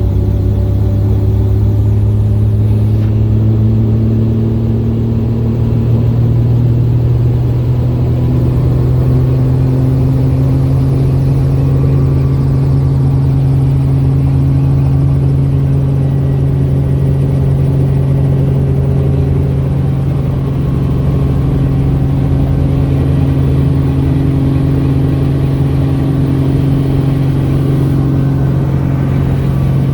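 Small helicopter's engine and rotor running with a loud, steady drone that steps up a little in pitch about six seconds in.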